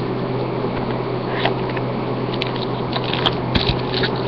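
Hands handling a cardboard hobby box and foil card packs: a few light clicks and low taps over a steady low hum, the taps clustering in the second half.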